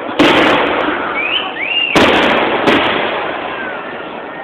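Aerial fireworks shells bursting overhead: three loud bangs, one just after the start, one about two seconds in and one soon after it, each echoing away.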